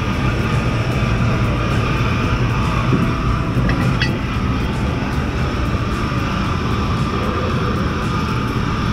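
Ship's machinery running on deck: a steady, loud, low drone with no change through the stretch.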